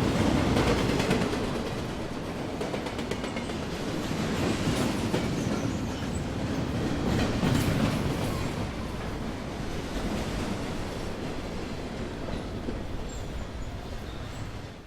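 Train running on rails: a steady rumble and rattle with wheels clattering over the rail joints. It cuts off abruptly at the end.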